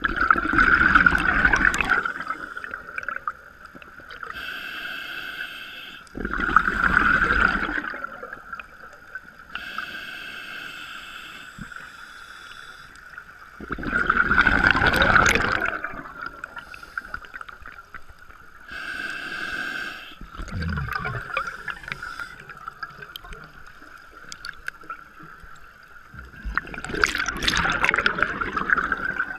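Scuba diver breathing through a regulator underwater: four loud rushes of exhaled bubbles, roughly six to seven seconds apart, with the softer hiss of each inhalation through the regulator in between. A steady high whine runs underneath.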